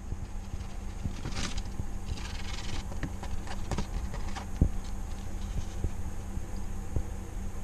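Wooden chopsticks clicking and knocking against a plastic salad bowl as a salad is tossed and sausage slices are added, with brief rustling near the start. A steady low hum runs underneath.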